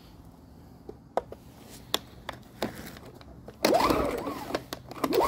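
Yardworks 950W inverter generator being pull-started: a few sharp clicks, then a little over halfway in the recoil starter is yanked and the small four-stroke engine turns over with a rising and falling whir but does not catch. The owner puts the failure to start down to fuel not yet reaching the carburetor.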